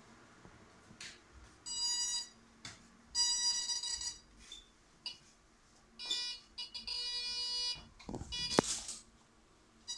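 Electronic buzzer of an Arduino obstacle-detector vest beeping in several separate bursts of a buzzy tone, short and longer, the warning that its sensors have picked up a nearby wall or doorway. A short, louder noise comes about eight and a half seconds in.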